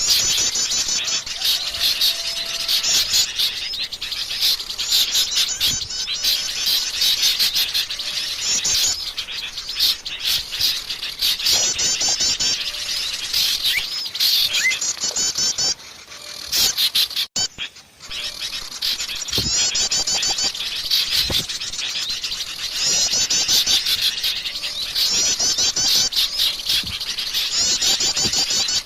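Wild forest birds singing, many high-pitched chirps and rapid trills overlapping without a break, with a short dip a little past halfway.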